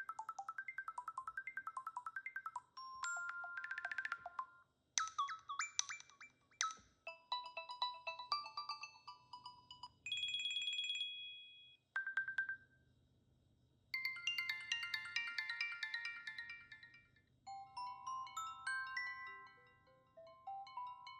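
Apple Watch ringtones previewed one after another on watchOS 11: about eight short, different chiming melodies, each lasting a second or a few seconds, with brief gaps between them; the last is a falling run of notes.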